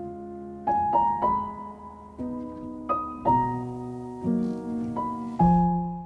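Slow, gentle background piano music: notes and chords struck every half second to a second, each left to ring and fade.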